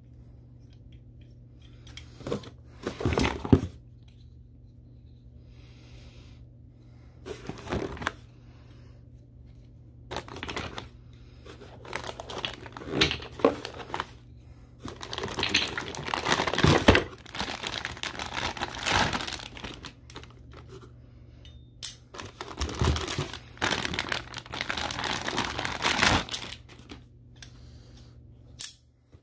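Plastic packaging bags crinkling and rustling in separate bursts while clamp parts are unwrapped and handled, loudest around the middle, with a few short knocks of the parts.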